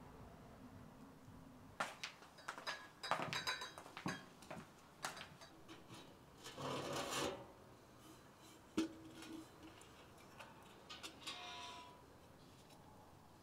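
Clinks and knocks of a metal teapot being lifted and handled at a wood-fired barrel stove, with a short rushing burst partway through.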